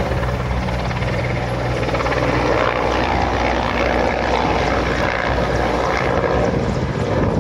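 Helicopter flying low overhead, its rotors and engines making a loud steady noise: a low hum for the first three seconds, then a broader rushing sound.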